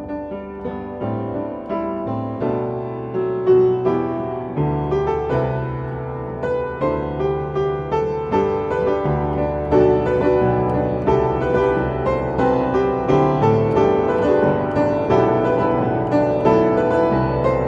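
Solo piano playing a pop ballad melody over chords and held bass notes, the notes struck one after another and growing louder through the phrase.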